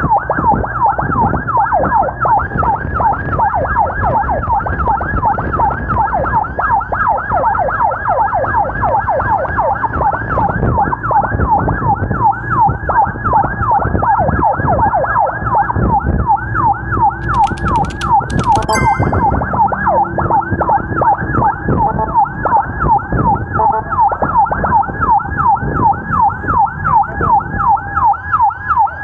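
Emergency vehicle siren in a fast yelp, its pitch sweeping up and down about three times a second without a break. Engine and road noise run underneath.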